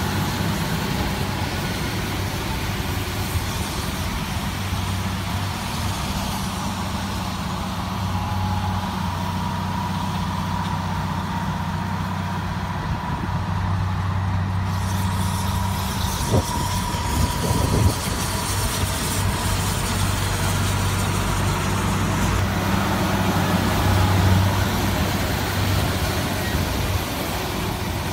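Massey Ferguson 6290 tractor's diesel engine running steadily as it pulls a Krone Comprima CF 155 XC baler-wrapper past, with a second tractor working nearby. A faint steady whine runs through the middle, and a few knocks come a little past halfway.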